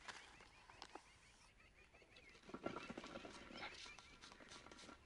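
Faint handling sounds: a plastic bag crinkling and scattered small clicks, thickest around the middle, as caustic soda flakes are spooned through a hole into a tin box.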